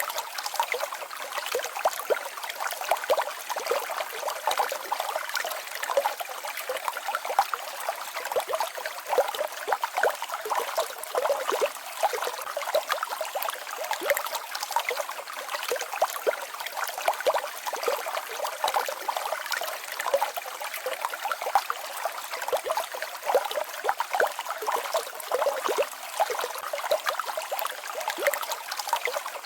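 Small mountain waterfall and stream babbling steadily, a constant rush of water full of small splashes and gurgles, with almost nothing in the low end.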